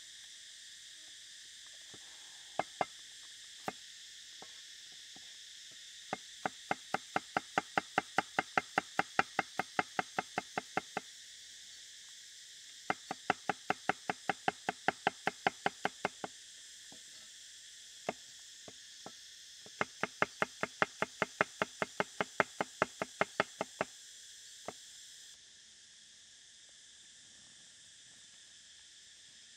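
Cleaver chopping shallots and garlic on a wooden chopping block: three runs of quick, even strokes, about four a second, with a few single knocks between them. Steady insect buzzing underneath.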